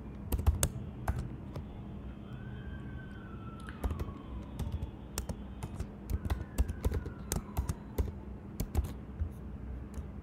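Typing on a computer keyboard: irregular bursts of key clicks, thinning out for a couple of seconds early on, over a steady low hum. A faint falling tone sounds twice in the background.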